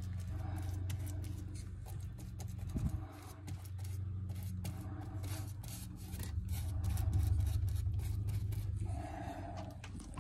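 Bristle brush scratching and dabbing on a fiberglass hull around drilled holes, a dense run of quick scratchy strokes over a low steady rumble.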